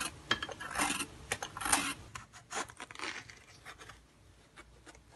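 A blade scraping the skin off a bottle gourd (lauki) in about half a dozen short peeling strokes, stronger in the first two seconds and fainter after.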